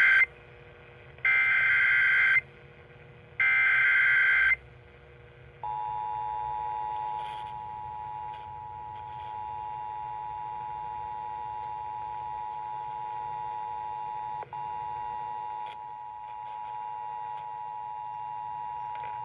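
Emergency Alert System activation on AM radio for a tornado warning: three short, loud bursts of the screeching SAME digital header (the first already under way), then the steady two-tone EAS attention signal starting about six seconds in, with a brief dropout partway through.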